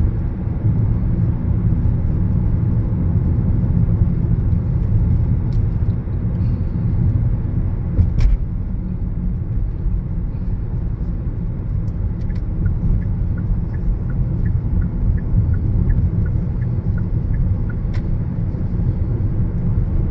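Car cabin road noise while driving: a steady low rumble of tyres and engine. About eight seconds in there is a sharp click, and past the middle a light ticking keeps an even beat for about five seconds.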